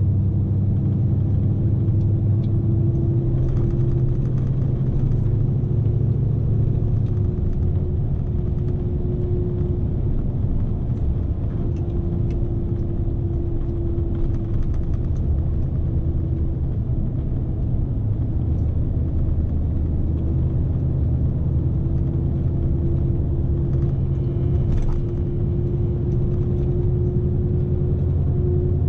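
Scania S520 truck's V8 diesel engine running steadily, heard from inside the cab as a low, even drone whose pitch sags a little and then comes back up.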